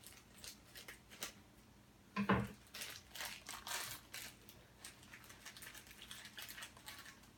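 Crinkly blind-bag packaging of a Funko Mystery Minis figure being rustled and torn open by hand, in irregular bursts, with a louder bump about two seconds in.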